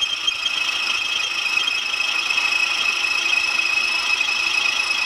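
Metal lathe turning a steel shaft, the carbide insert giving a steady high-pitched squeal as it cuts through the hardened surface layer of the steel.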